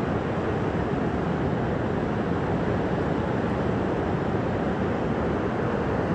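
Flash-flood torrent rushing through a mountain valley: a steady, dense rush of fast-moving water with no let-up.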